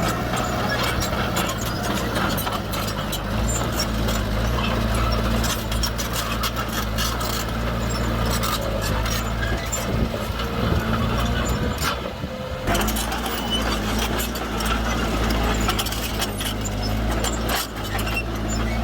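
A 5-tonne dump truck's engine running steadily while its load of stone is tipped, with many sharp clatters of stones over the engine sound. The sound drops out briefly about two-thirds of the way through.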